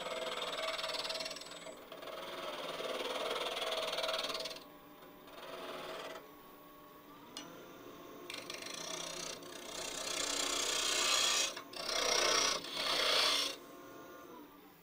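Wood lathe spinning a small spalted lid blank while a 3/8-inch bowl gouge takes cuts across its face to flatten it: a hissing, scraping cut in about five passes of one to three seconds each, over a faint steady hum.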